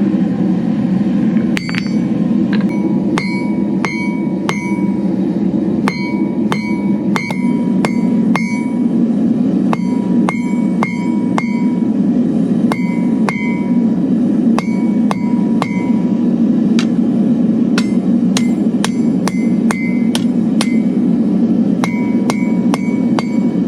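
Hand hammer striking metal on an anvil in runs of quick blows, about two to three a second with short pauses, each blow leaving a short bright ring. A steady low hum runs underneath.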